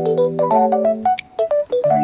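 Background music: sustained electric-piano or organ chords with a light melody of short keyboard notes above them.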